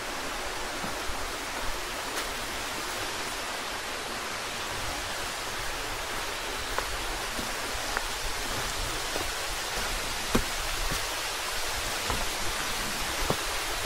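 Steady, even rush of a waterfall, with a few faint knocks near the microphone.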